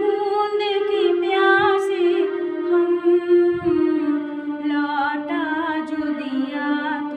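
A woman singing solo, holding long notes in a slow melody.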